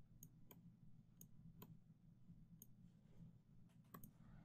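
Near silence, with a steady low room hum and about seven faint, sharp computer mouse clicks at uneven intervals, made while drawing marks on a chart.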